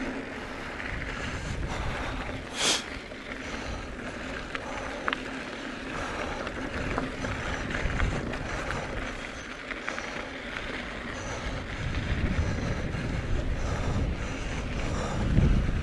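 Mountain bike rolling over a dirt trail: a steady rumble of tyres and wind on the microphone. There is a brief high squeak about two and a half seconds in, and the rumble gets heavier near the end.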